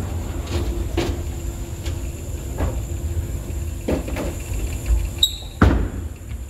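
A bowling ball is released and lands on the lane with a single loud thud about five and a half seconds in, over a steady low rumble, with a few softer knocks before it.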